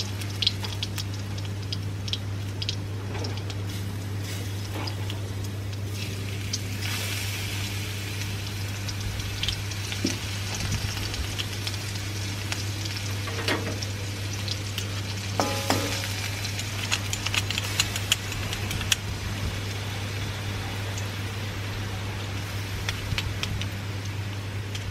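Freshly pressed garlic sizzling in hot oil in an aluminium wok, a steady hiss. Scattered metallic clicks and scrapes come from the garlic press being squeezed and scraped clean with a knife, over a steady low hum.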